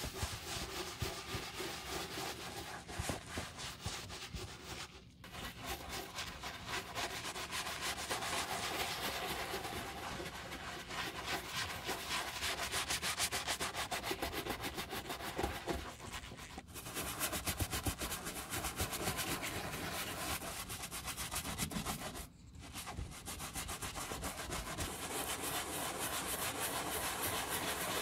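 Wooden-handled bristle brush scrubbing soapy lather over a leather boot in rapid back-and-forth strokes, a wet, foamy rubbing. It stops briefly three times.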